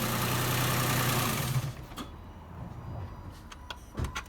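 Nissan Pathfinder 4.0 V6 petrol engine idling steadily, with a cylinder misfire and a rich mixture from a faulty coil pack and lambda sensor, then switched off and stopping abruptly under two seconds in. A few light clicks and a thump follow near the end.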